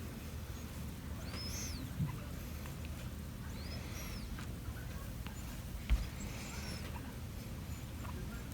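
A baby's high, squeaky breathing noises, one about every two and a half seconds, with a soft bump about six seconds in.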